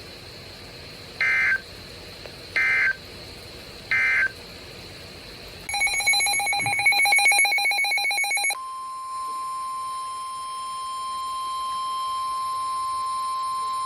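Emergency Alert System tones: three short bursts of SAME end-of-message data, about a second and a half apart, then a longer burst of rapidly warbling digital header data. Then the steady single-pitch 1050 Hz National Weather Service warning alert tone, held for about six seconds.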